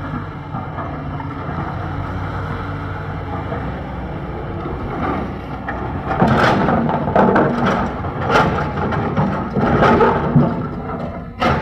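Diesel engine of a JCB 3DX backhoe loader running steadily while it works, joined about halfway through by several loud rushes of noise.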